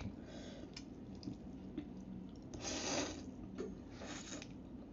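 A person slurping instant noodles: two hissing slurps about a second apart in the second half, with soft clicks and eating noises before them.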